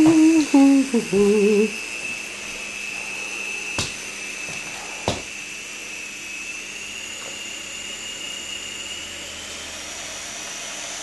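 Small remote-control toy helicopter's electric rotor motor running with a steady high whine, its pitch creeping up in the second half. In the first second or two a person hums a few notes over it, and there are two sharp clicks about four and five seconds in.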